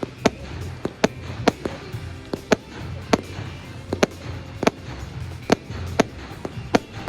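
Fireworks display: a run of sharp bangs going off at irregular intervals, about one or two a second, over music.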